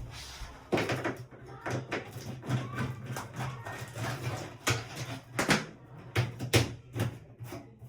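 Irregular clicks, knocks and rustling of flexible dryer vent duct being handled and worked on, over a steady low hum.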